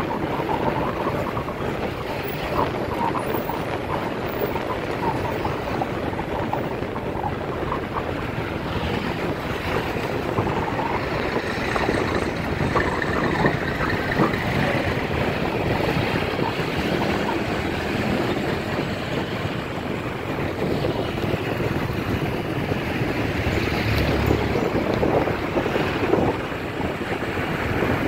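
Wind rushing over the microphone of a moving motorbike, over the road and traffic noise of a busy street.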